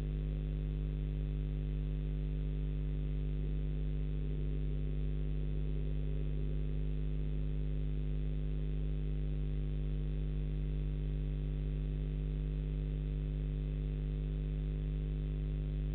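Steady electrical hum: several constant tones, strongest in the low bass, unchanging throughout, with no bird calls.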